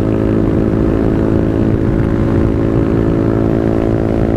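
Honda Grom's 125 cc single-cylinder engine running at a steady cruising speed, heard through a microphone inside the rider's helmet, with low wind rumble.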